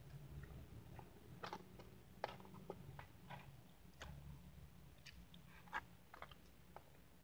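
Faint mukbang eating sounds: a scatter of short, sharp clicks and smacks from a metal fork against a clear plastic bowl and from mouthfuls of whipped cream and Oreo being chewed.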